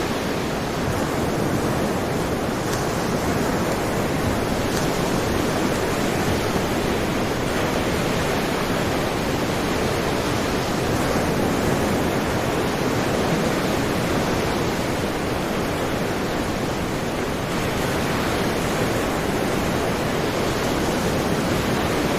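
Sea surf: a steady, dense wash of waves with only slight swells in loudness.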